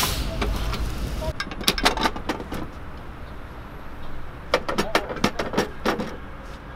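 Metal clanks and clicks of a hinged stovetop waffle iron and metal tongs: a loud clank at the start as the iron is swung over, then two quick runs of sharp clicks, about two seconds in and again around five seconds, over a low rumble that drops away after about a second.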